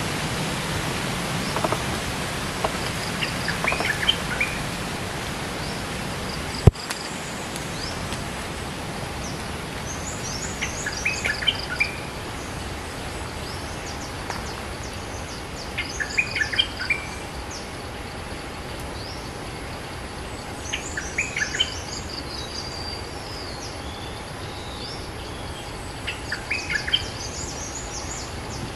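Bulbul singing short, quick chattering phrases, one every few seconds, over a steady hiss of outdoor background noise. It is a caged decoy bird calling to draw in a wild territorial bulbul. A single sharp click comes about a quarter of the way in.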